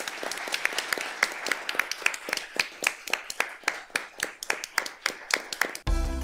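Applause: many people clapping, with single sharp claps standing out over a steady haze of clapping. It cuts off suddenly near the end as music with a deep bass starts.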